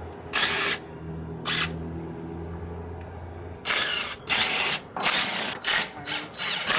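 DeWalt cordless impact gun running in a series of short bursts, backing out the bolts of a Ford 8.8 rear differential cover. A steady low hum sits underneath during the first half.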